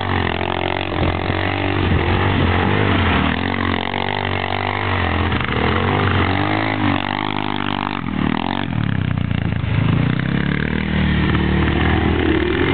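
Quad bike engine revving up and falling back again and again as the quad spins tight circles on dirt, then running at a steadier pitch near the end.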